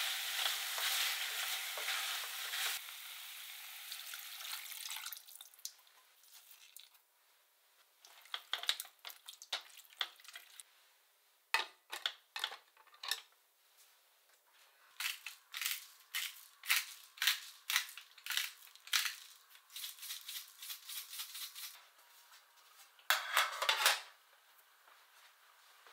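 Sliced potatoes and onion sizzling as a spoon stirs them in a stainless steel pot, fading out after about three seconds. A string of separate light clicks and taps follows, and a short metallic clatter about 23 seconds in as a stainless steel tray is handled on the counter.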